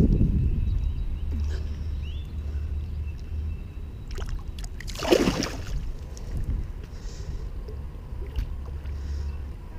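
Low wind rumble on the microphone, with a short splash about five seconds in as a bass is released into the pond water.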